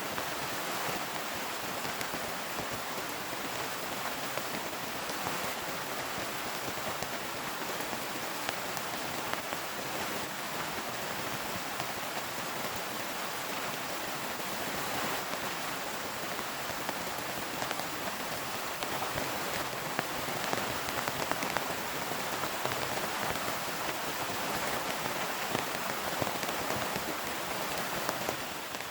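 Heavy rain falling steadily, a dense hiss of drops with many sharp individual hits.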